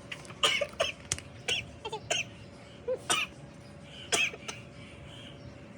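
A person coughing hard in short bursts, about nine coughs in clusters over four and a half seconds, the choking cough of spicy masala caught in the throat.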